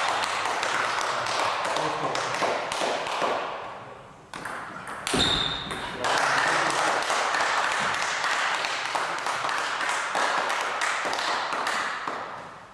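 Table tennis rally: the ball clicking off the bats and the table in quick irregular strokes, over a steady hiss.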